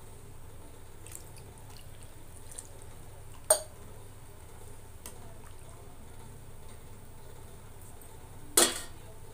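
Metal ladle stirring watery curry in a metal kadhai, the liquid sloshing, with two sharp clanks of metal on metal, one a few seconds in and one near the end. A steady low hum runs underneath.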